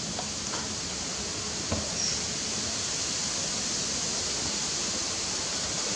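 Steady hiss of background noise, with a few faint clicks in the first two seconds.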